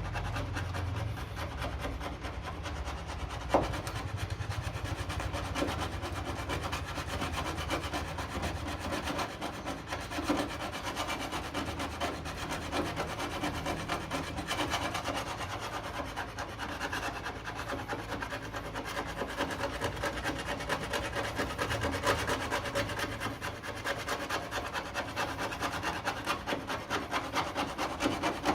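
Hand body file scraping in quick repeated strokes across the welded-in door sill repair patch, filing it flat to show up high and low spots. A single sharp knock about three and a half seconds in.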